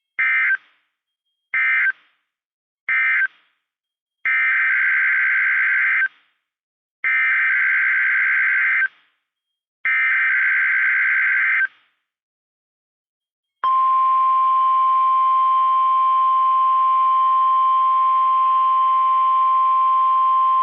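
NOAA Weather Radio Emergency Alert System test signal: a string of raspy digital data bursts of the SAME header, three short and then three about two seconds long, followed about two-thirds of the way through by the steady, loud 1050 Hz warning alarm tone.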